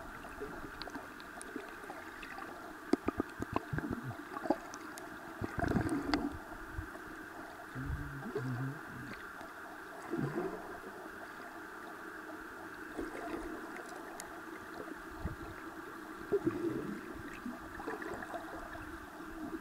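Shallow seawater sloshing and gurgling, with a few sharp small splashes and clicks and several short surges.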